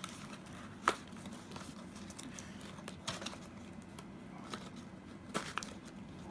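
Cardboard and plastic game packaging being handled and pulled apart: scattered crinkles and small clicks, with a sharp snap about a second in and a few more close together near the end.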